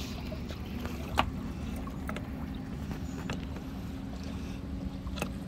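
Wind on the microphone making a steady low rumble, with a few sharp metallic clicks from a wrench tightening a cable clamp onto a battery terminal, the loudest about a second in.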